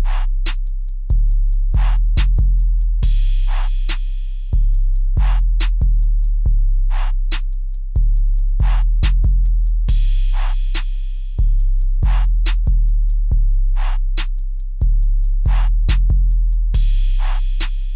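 Background music: a drum-machine beat with a deep sustained bass line, quick hi-hat ticks and snare hits, and a cymbal crash about every seven seconds.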